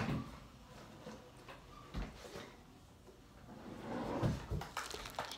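Small knocks and clicks of makeup containers and brushes being handled on a tabletop: a knock about two seconds in, a few more a little after four seconds, and light clicks near the end.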